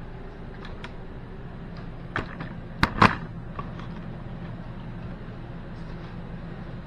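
A few light knocks and clicks, then two sharp knocks close together about three seconds in, over a steady low hum.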